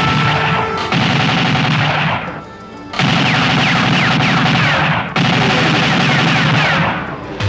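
Rapid automatic gunfire in a film shootout, with bullets ricocheting in short falling whines. The firing drops to a lull about two seconds in, resumes at three seconds, and breaks off briefly about five seconds in.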